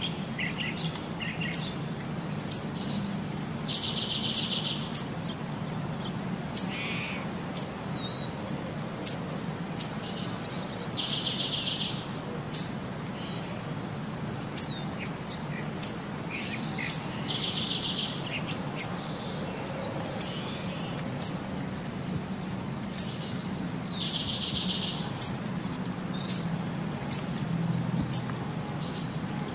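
A looped birdsong track: short high chirps about once a second and, about every six and a half seconds, the same one-second buzzy trill, over a low steady hum.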